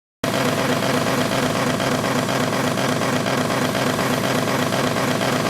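Remote-control Scania truck running with a steady, engine-like drone that begins abruptly just after the start.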